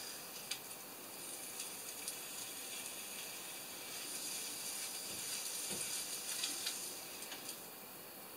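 Food sizzling in a frying pan on the stove, with a few light clicks of a utensil against the pan. The sizzle grows stronger in the second half and drops off shortly before the end.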